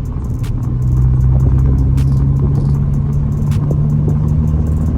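Honda Accord engine and road noise heard from inside the car while driving at a steady speed, a constant low drone.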